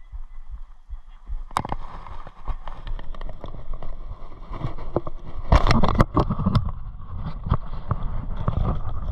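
Close-up rustling and knocking of clothing and gear against a body-worn camera as an angler kneels on a plastic floating dock to release a bass, with a louder cluster of knocks and clatter about halfway through.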